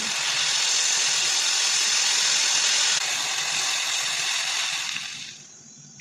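A loud, steady hiss that fades out about five seconds in.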